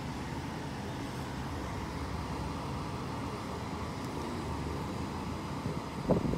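Steady background noise: a low hum with a hiss over it and no distinct events.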